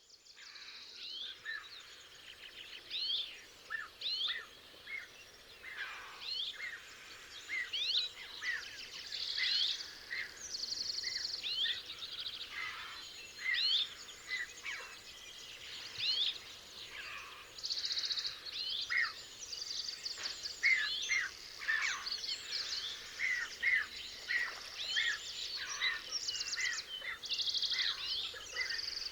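A chorus of small songbirds: many short whistled notes and chirps overlapping, with quick trills now and then, over a faint outdoor hiss.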